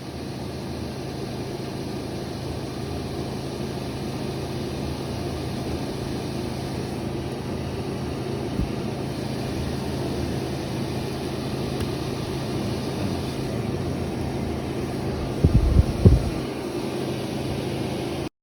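Steady low mechanical drone from a running machine, with a few dull thumps near the end.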